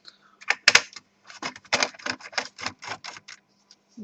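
Quick sharp clicks of a screwdriver working on the screws of a laptop's plastic bottom case as they are taken out. A couple of louder clicks come just under a second in, then a fast run of about six clicks a second.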